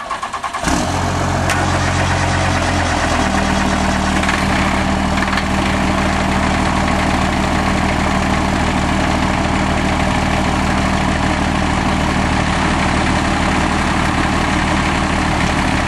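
Small Yanmar 18-horsepower diesel tractor engine throttled up and running under load as it pulls against a stuck pickup. The engine speed steps up about three seconds in and then holds steady.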